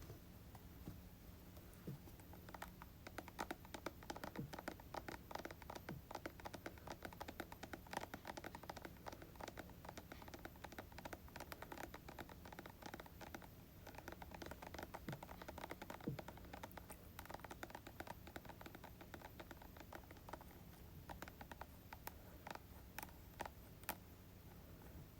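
Tapping on hair-product containers: many quick, faint clicks in dense clusters that thin out near the end.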